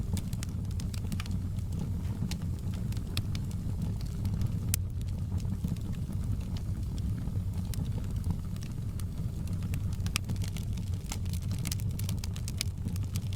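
Wood fire crackling: sharp pops and snaps scattered over a steady low rumble of flames. The pops come thicker near the end.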